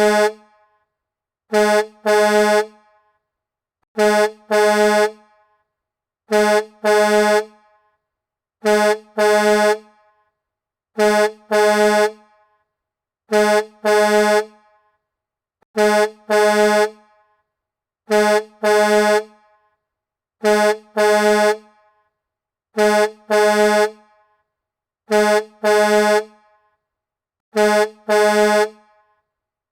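Semi-truck air horn honking in pairs, a short blast followed at once by a longer one, the pair repeating evenly about every two and a half seconds with silence in between.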